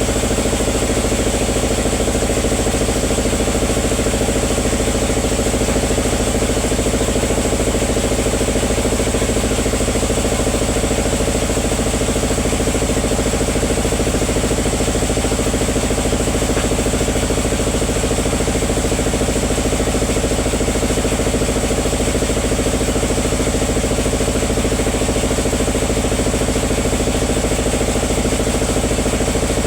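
Sawmill machinery running steadily: a constant engine drone with a thin high whine above it, holding the same pitch throughout.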